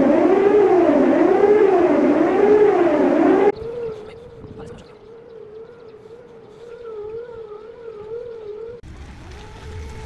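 Emergency-alarm siren recordings sped up to four times normal speed. First a loud wail rises and falls about once a second. About three and a half seconds in it cuts to a quieter, faster-warbling tone, and near the end to a steadier tone over a low rumble.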